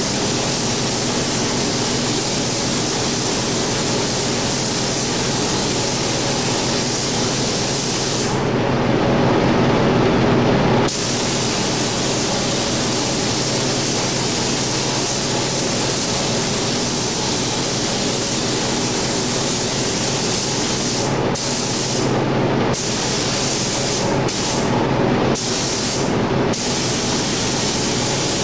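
Gravity-feed paint spray gun hissing steadily as it lays down black single-stage paint. The spray breaks off for a couple of seconds about eight seconds in and in several short gaps near the end. A steady low hum runs underneath.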